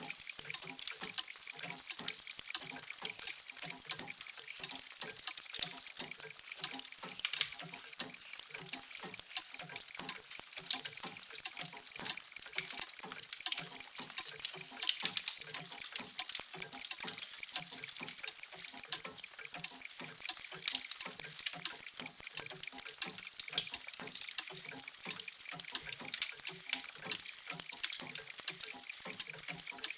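Many mechanical clocks ticking at once, their ticks overlapping into a dense, steady patter of sharp clicks with no pause.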